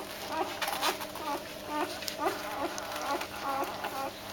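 Newborn Doberman puppies squeaking and whimpering while nursing: short, high little squeaks in quick succession, about three a second, with scattered clicks among them.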